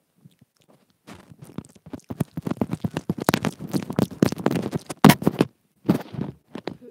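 Close mouth sounds on the inline microphone of wired earbuds: a fast, dense run of wet clicks and crackles from lips and teeth nibbling and mouthing it, loudest about five seconds in. A few single clicks follow near the end.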